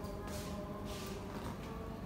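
Soft background music with sustained held notes, over a few brief rustling, rubbing sounds.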